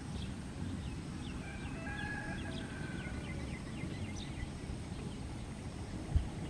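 Faint bird calls: a quick run of short chirps over a held note for about three seconds, above a steady low rumble, with a single thump near the end.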